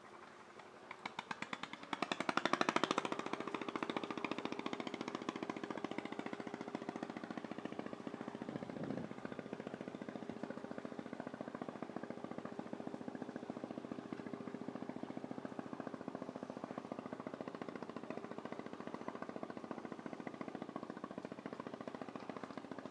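A motor running with a rapid, even chugging that starts about a second in and is loudest soon after, then runs on steadily.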